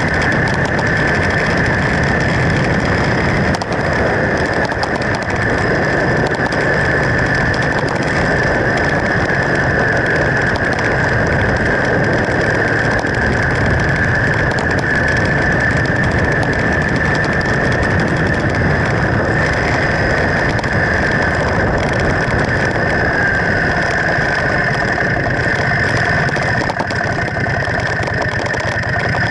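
1979 Honda CX500 motorcycle's liquid-cooled V-twin running steadily on the move, mixed with steady wind rush on the bike-mounted microphone.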